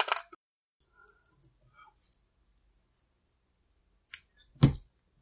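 Wire strippers working the thin lead wires at a lithium pouch battery's tab: faint small ticks, then two sharp clicks near the end, the second the louder.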